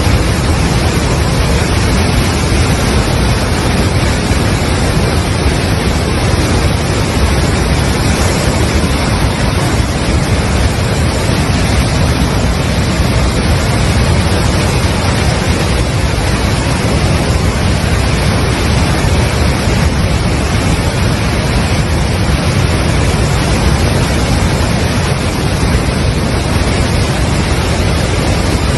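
Steady, loud rush of a flash-flooded river: a torrent of muddy floodwater pouring past, unchanging throughout.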